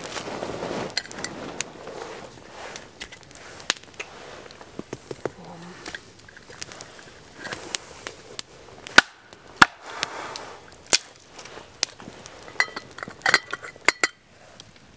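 Wood campfire crackling with irregular sharp pops. Near the end a few ringing metal clinks as a lid is set on the steel cook pot over the fire.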